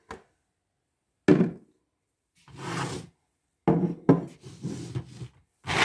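A sharp knock about a second in, then bursts of rustling and clatter as skinned roasted hazelnuts and a plate are handled on a table, loudest near the end.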